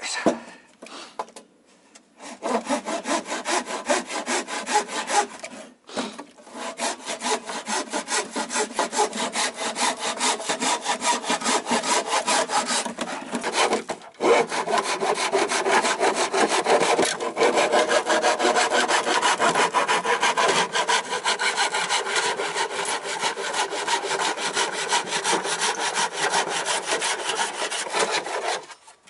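Hand saw cutting through a green-painted wooden board from a dismantled pedal boat, in quick, steady back-and-forth strokes. The sawing starts about two seconds in and pauses briefly twice, near six and fourteen seconds in.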